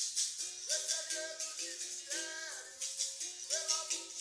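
Capoeira roda music: voices singing a sustained melody over a shaken rattle keeping a quick, steady beat.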